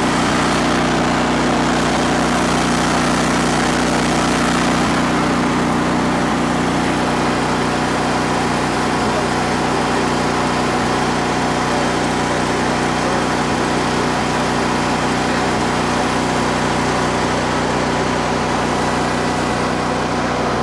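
A 15 kW Briggs and Stratton air-cooled standby generator engine, fuelled by natural gas, running steadily after being started on manual override.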